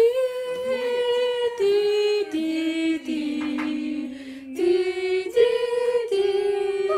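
Women singing a cappella with no instruments: a run of long held notes that step down in pitch and then climb back up.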